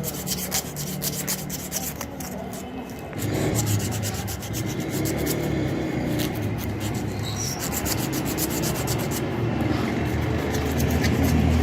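Rough abrasive rubbing, like sanding, in quick repeated strokes over a steady low hum. It grows louder and heavier about three seconds in.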